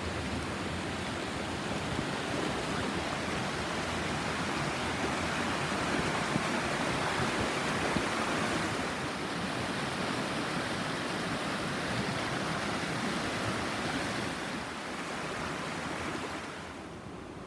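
Running water of a forest stream, a steady rushing noise that swells a little in the middle and eases off near the end.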